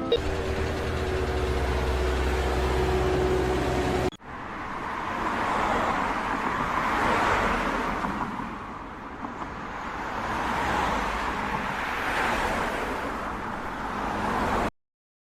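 Mechanical and traffic-like noise: first a steady low engine-like hum with a held tone, then, after an abrupt cut about four seconds in, a rushing noise that swells and fades several times, like vehicles going past. It cuts to silence just before the end.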